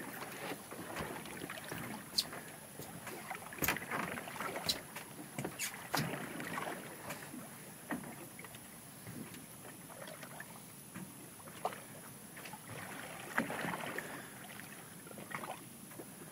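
Sounds aboard a drifting fishing boat: a steady haze of water and wind noise, with scattered sharp knocks and clicks throughout.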